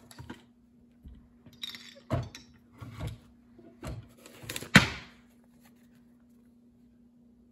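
A small keepsake chest being handled and its little drawer pulled open: a few separate knocks and clicks, the loudest a sharp click a little before halfway.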